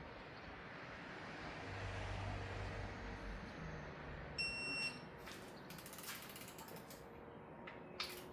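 Ratchet wrench clicking as the inner main bearing cap bolts of an LS engine are turned to 80 degrees of angle. A short high beep sounds about halfway through, followed by several sharp clicks.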